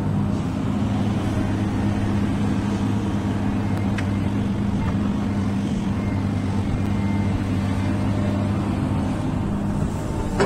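Diesel engine of an XCMG hydraulic excavator running steadily at working speed while the machine swings and digs gravel, a constant hum with little change.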